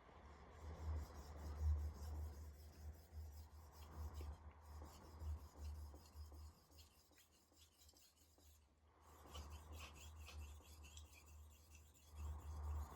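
Steel chef-knife blade scraping back and forth across a wet splash-and-go sharpening stone, a faint rasping of repeated strokes that stops for a moment about two-thirds of the way through. A low steady hum lies underneath.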